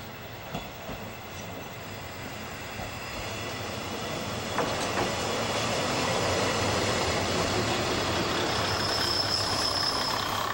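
Shimabara Railway KiHa 22 diesel railcar passing close by, its engine running with a steady low hum. The sound grows louder until about halfway through, with a couple of wheel clicks over rail joints as it draws level. A thin, high wheel squeal comes near the end.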